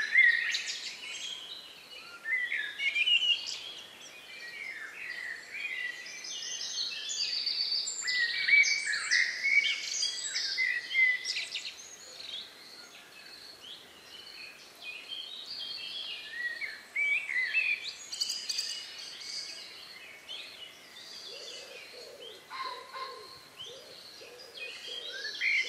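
Several birds singing and chirping, many overlapping short warbling notes, over a faint outdoor background. A lower, rapidly repeated call joins near the end.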